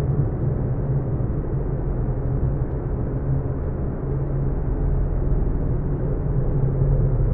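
Sci-fi alien-landscape ambience: a steady, low, muffled rumbling drone with a constant deep hum under it. Nothing stands out or changes.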